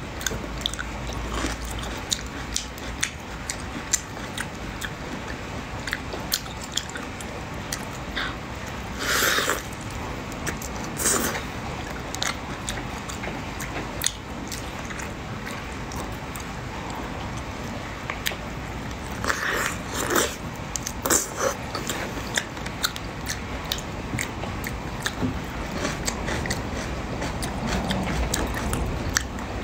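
Close-miked eating of whole shrimp in spicy sauce: many small clicks and crackles of shells being pulled apart, with wet chewing. A few louder, longer wet noises come about nine and eleven seconds in and again around twenty seconds.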